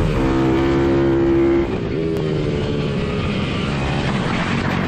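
Motorcycle engine running hard at high revs, heard up close from on the bike. It holds a steady pitch, dips briefly about two seconds in as the rider shifts or eases the throttle, then carries on at slightly lower revs.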